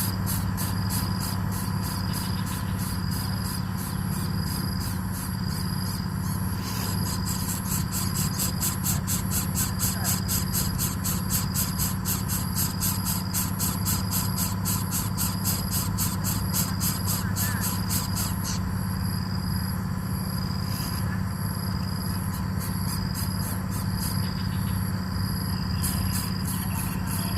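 Insects chirping in a fast, even pulse, with a high note repeating about once a second, over a steady low hum. The pulsing stops about two-thirds of the way through and comes back near the end.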